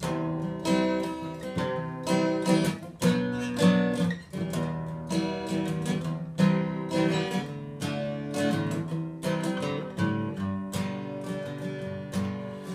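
Steel-string acoustic guitar strummed in a steady rhythm of chords, played solo with no voice yet, starting abruptly.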